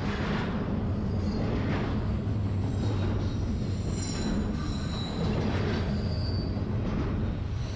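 Long freight train running slowly through a tight curve: a steady low rumble, with high-pitched wheel squeal coming and going, loudest about halfway through.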